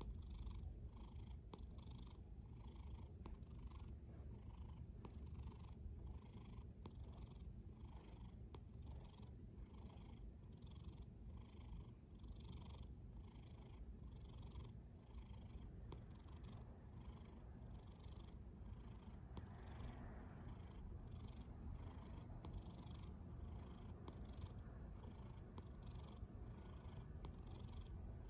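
A cat's soft, low rumbling breaths, repeating evenly roughly once a second.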